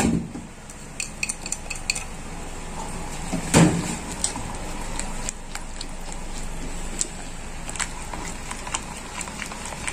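A whisk stirring thick cream sauce in a metal saucepan, with scattered light clicks of the whisk against the pan and one louder knock about three and a half seconds in.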